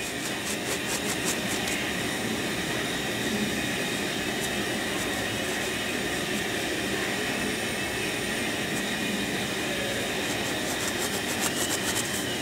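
A steady rushing noise, with faint quick ticks near the start and again near the end.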